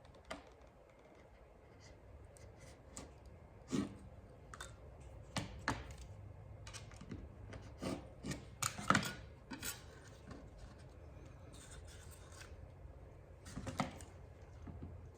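Hand work on paper birch bark: irregular snips, clicks and scrapes, with a few sharper knocks about 4, 8 to 9 and 14 seconds in, and a brief rustle in between.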